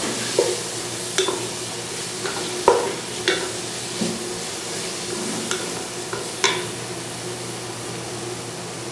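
Onions and cashews sizzling steadily in oil in a nonstick pot while a wooden spatula stirs them, scraping and tapping against the pan at irregular moments. The spatula strokes stop a little after halfway, leaving only the sizzle.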